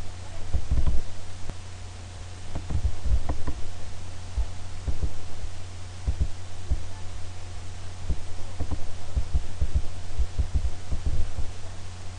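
Steady low electrical hum on the recording, with irregular dull thumps scattered throughout.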